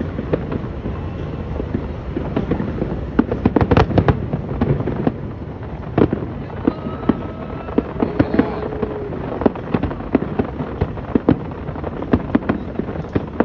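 Fireworks going off repeatedly: many sharp bangs and cracks over a steady rumble, with a dense run of rapid bangs about three to four seconds in.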